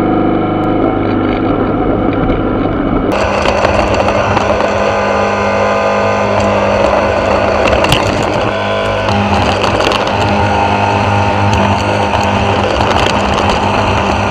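Yard Machines walk-behind lawn mower's small petrol engine running steadily under load while mowing grass; the sound turns harsher and fuller about three seconds in.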